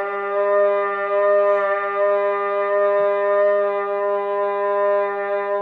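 One long, steady held note, rich in overtones, with no change in pitch; it stops suddenly near the end.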